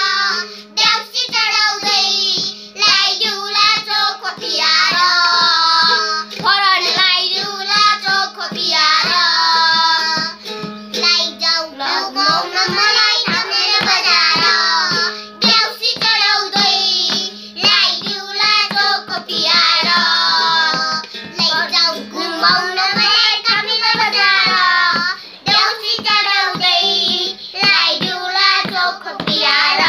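Young children singing a Nepali song together in phrases, with a small toy ukulele strummed and a madal hand drum tapped in a steady rhythm beneath the voices.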